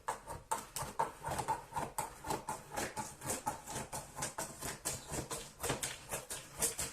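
A cardboard box being handled and opened, with a rapid, irregular run of scratchy taps and scrapes several times a second.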